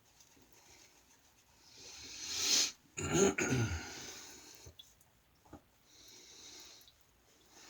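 A man draws a sharp, rising breath in, then lets out a short explosive expulsion with a falling voice in it, like a sneeze, about three seconds in.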